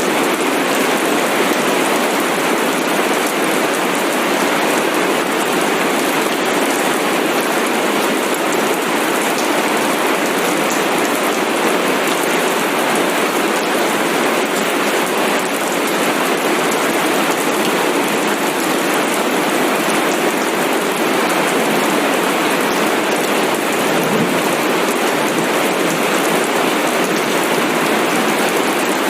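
Steady rain falling, an even, unbroken hiss of drops on a surface.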